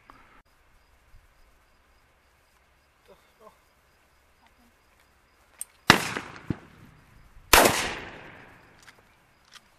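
Two shotgun shots about a second and a half apart, each trailing off over about a second, fired at flying doves.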